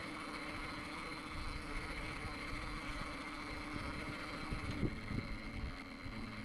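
Axial Capra RC rock crawler crawling over rock: a steady whine from its Hobbywing Axe 540 motor and geared drivetrain, over a rough rumble of tyres on the rock, with a few knocks about five seconds in.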